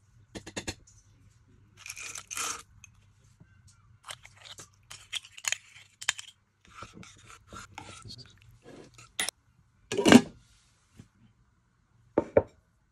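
Cooking handling sounds: metal tongs and a spoon clicking and scraping in a slow cooker pot as food is lifted out and added to the sauce. There is a louder clatter about ten seconds in and two sharp knocks near the end.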